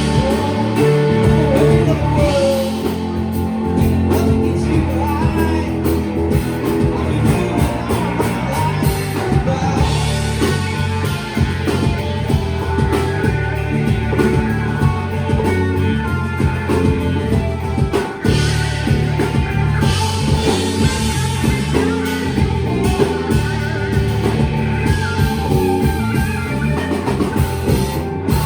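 Live rock band playing, with singing, electric guitars and a drum kit, as heard in a club performance.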